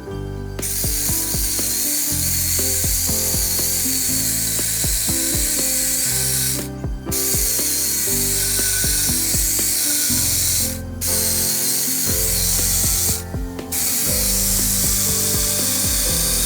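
A power tool working wood, with a steady high hiss that stops briefly three times and starts again, over background music.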